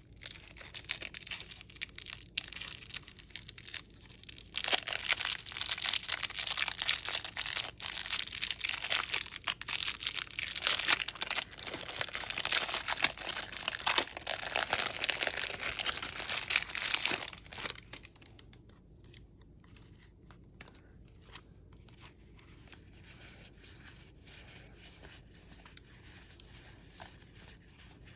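Magic: The Gathering card pack wrapper being torn open and crinkled, a crackly rustling for about seventeen seconds that grows louder a few seconds in, then stops and leaves only faint light ticks.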